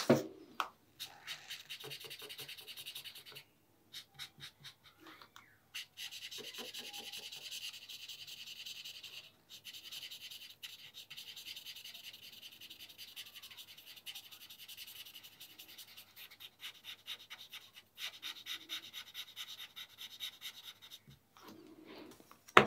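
Felt-tip marker rubbing across paper in quick back-and-forth strokes as it fills in solid black areas, in runs broken by short pauses. A sharp click comes right at the end.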